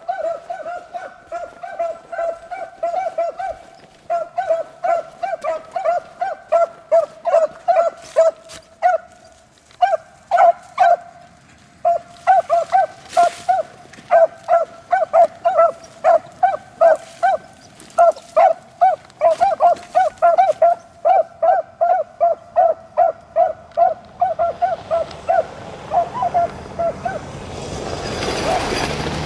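Beagles baying on a rabbit's trail: a fast run of clear, same-pitched barks, about two to three a second, with brief pauses. Near the end the barking stops and a vehicle approaches, growing louder.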